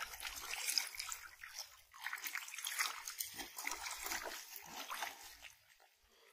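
Shallow muddy water sloshing and splashing around a man's legs as he wades, pushing a bamboo-framed push net through it. The splashing comes in irregular bursts and dies away near the end.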